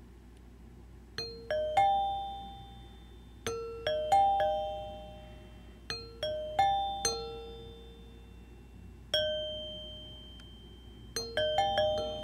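Williams electromechanical pinball chime unit, freshly rebuilt: its three metal chime bars are struck one after another in rising runs of low, middle and high notes, each ringing out clearly and fading. Three runs of three, then a single strike, then a quicker run near the end.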